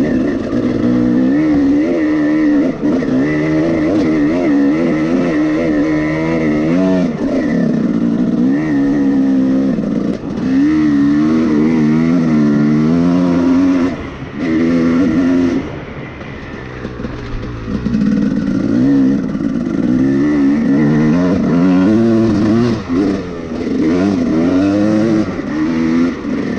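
Husqvarna TC 300 dirt bike engine running under way, revving up and down with the throttle so its pitch rises and falls repeatedly. It eases off and goes quieter for a few seconds about halfway through, then picks up again.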